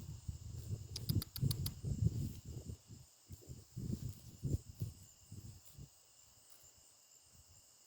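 Crickets chirring steadily, with irregular low rumbles and thumps over the first six seconds and a quick run of about six sharp clicks about a second in.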